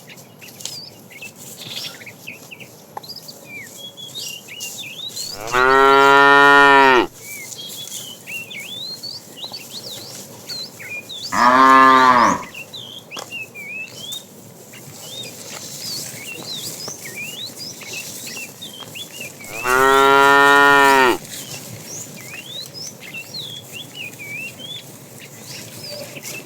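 A cow mooing three times, each a long moo of about a second and a half, the first about five seconds in and the last near two-thirds through. Small birds chirp steadily between the calls.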